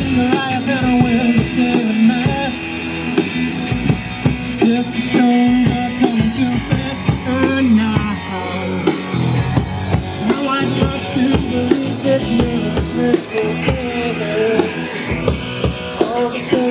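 A rock band playing, with a drum kit keeping a steady beat under electric guitar.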